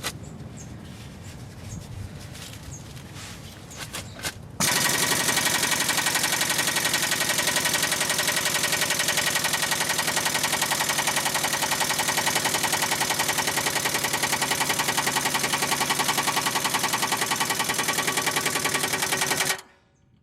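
Heavy-duty 3/4-inch air impact wrench starts about four and a half seconds in and hammers steadily at a rapid rate for about fifteen seconds on a seized crank pulley bolt, then stops abruptly. A few faint clicks and handling sounds come before it.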